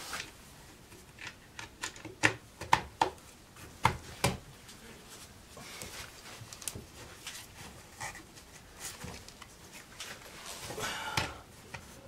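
Bosch 1617 router's top housing cover being handled and fitted onto the motor body: a string of sharp clacks and knocks in the first few seconds, then quieter fumbling as the parts are lined up.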